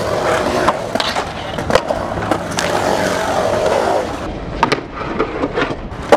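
Skateboard wheels rolling, with a steady rumble that swells and then eases off after about four seconds. Scattered sharp clacks from the board come through it, and the sharpest comes near the end.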